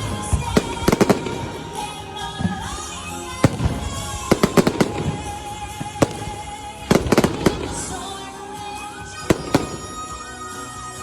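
Fireworks going off in clusters of sharp bangs, several groups of rapid cracks a few seconds apart, over music playing.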